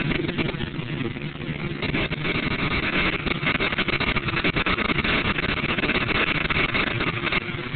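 Electric EazyCut trimming machine with its Venti suction system running steadily as it cuts across trays of plants: a dense, continuous machine noise full of fine rapid ticking, with a hissing upper part that grows stronger about two seconds in.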